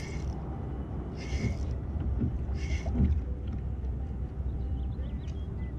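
Steady low rumble of wind and water on an action camera's microphone on a kayak, with three short hissing bursts about a second and a half apart early on.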